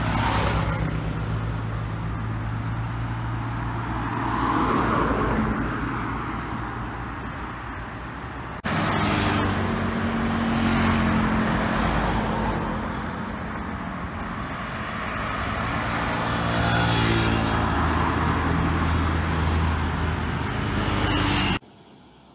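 Road traffic passing close by: engine hum and tyre noise swell and fade as cars and a motor scooter go past. The sound changes abruptly about nine seconds in, and drops sharply to a much quieter background near the end.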